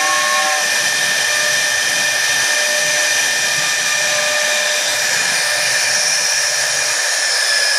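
CNC router spindle running at high speed while its bit engraves letters into a wooden board: a steady high-pitched whine over the hiss of the cutter in the wood. The whine sags slightly in pitch near the end.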